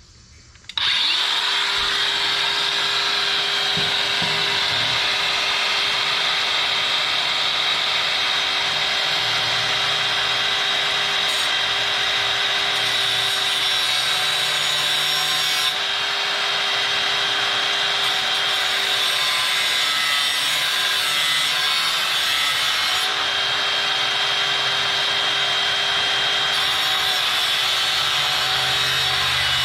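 Power grinder with a grinding wheel starting up about a second in and running steadily with a high whine, cutting off a broken metal hose clamp on a radiator hose.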